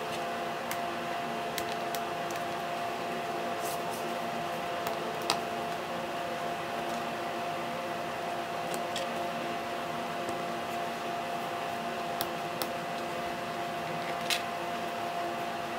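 A steady hum with one clear fixed tone over a hiss, with a few scattered small clicks of a screwdriver working small screws out of a laptop's plastic bottom case.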